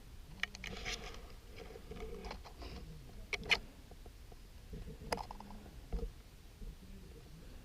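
Scattered rustling and a few sharp clicks and snaps, the sharpest about three and a half seconds in and again about five seconds in.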